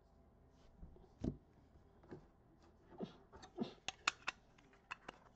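Hard clear plastic card case being opened and handled over a stack of trading cards: a dull knock about a second in, then a quick run of sharp plastic clicks and taps in the second half.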